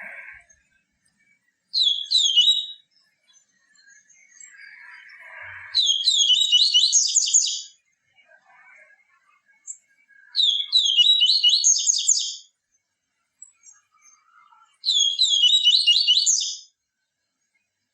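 Papa-capim seedeater singing: four phrases of quick, high, repeated falling notes a few seconds apart, the first one short and the rest about two seconds each.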